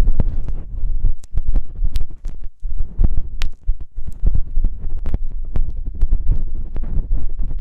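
ASMR ear massage sounds: something rubbing and pressing directly against a microphone's ear. This gives irregular, muffled low thuds and rumbling, mixed with sharp crackling clicks.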